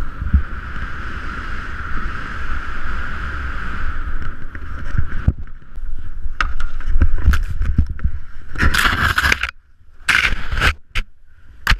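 Snowboard sliding and scraping over packed snow, with a steady hiss and the low rumble of wind on the camera microphone. From about eight and a half seconds in come several loud bursts of scraping and thuds, with short quiet gaps, as the rider falls and tumbles in the snow.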